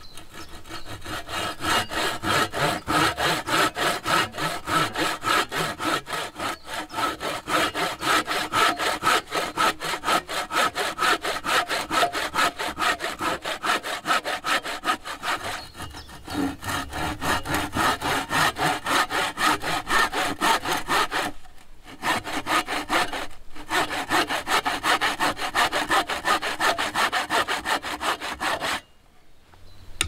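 Hand saw cutting through a wooden pole in steady, even back-and-forth strokes. The rhythm dips briefly about halfway and stops a little before the end.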